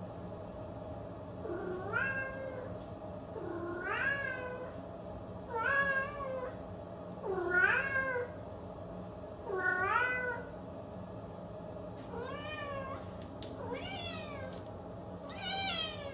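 Domestic cat meowing over and over, about eight meows a couple of seconds apart, each call rising then falling in pitch.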